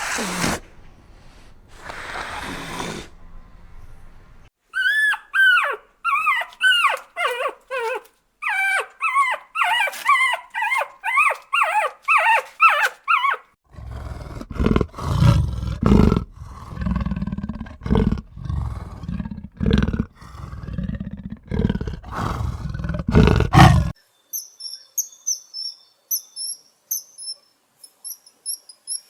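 A run of different animal calls: first rapid squeaky chirps that rise and fall in pitch, then a series of deep, rough growl-like calls, and near the end short high chirps.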